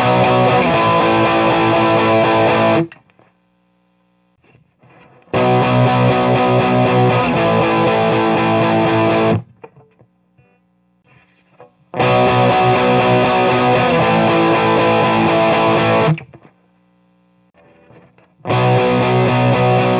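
An electric guitar, a Les Paul Standard with BurstBucker pickups, plays the same riff four times through the high treble channel of a Marshall Model 1987 50-watt amp clone, with the amp breaking up into distortion. Each pass lasts about four seconds and is followed by a short pause. The passes alternate with the amp's selectable bright cap switched off and on. In the pauses a faint steady amp hum remains.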